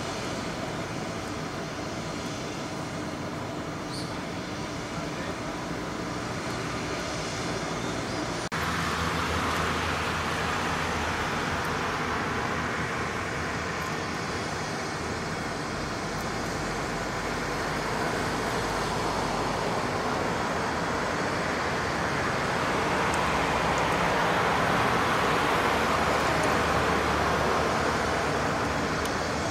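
Steady outdoor road-traffic noise. About eight seconds in it changes abruptly and becomes louder and fuller, swelling again near the end, as of a vehicle passing.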